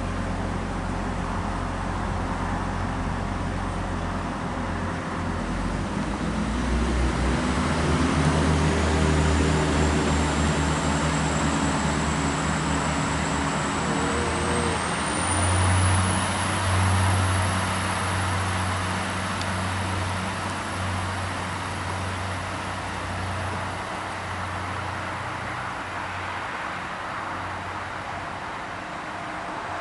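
Class 175 diesel multiple unit's underfloor diesel engines, first ticking over, then powering up as the train pulls out, with the engine note climbing over several seconds. A thin high whine steps up in pitch about halfway through, and the engine noise slowly fades as the train draws away.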